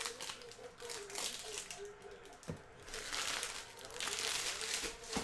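Plastic wrapping of a trading card box or its packs crinkling and rustling in bursts as it is unwrapped by hand, with a couple of sharp clicks.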